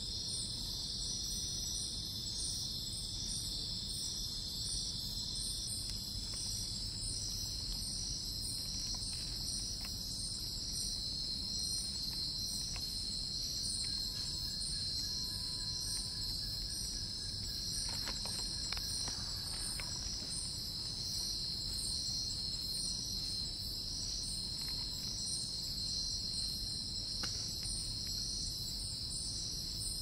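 Steady night chorus of crickets and other insects: a continuous high-pitched trill, with a faster pulsing layer above it.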